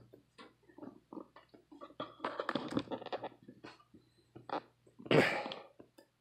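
Scattered small clicks and rustles of a phone being handled as it is turned and moved, with a short, louder breathy sound about five seconds in, over a faint steady low hum.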